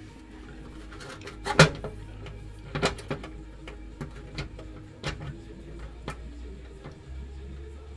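Metal transmission oil pan for a 700R4 automatic being wiggled up into place under the truck, clunking and clicking against the transmission and crossmember with its bolts rattling. The loudest knock comes about one and a half seconds in, followed by several lighter clicks.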